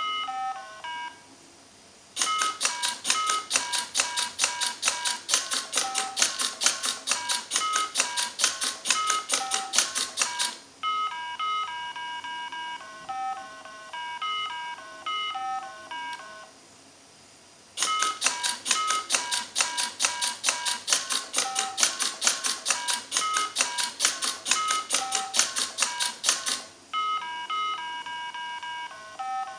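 Mini Simon electronic memory game beeping out a sequence of short tones at a few different pitches. Twice the robot plays the sequence back: a run of rapid, even clicks, about five a second and lasting several seconds each time, from its button-pressing mechanism, with the game's tones sounding under them.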